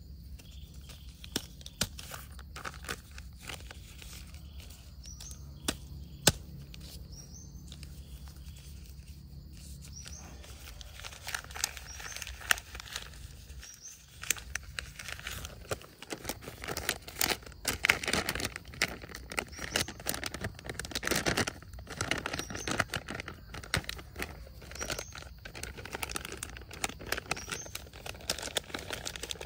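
A bag crinkling and rustling as it is handled, the crackling thicker and louder from about ten seconds in. Short, high, rising bird chirps come now and then through it.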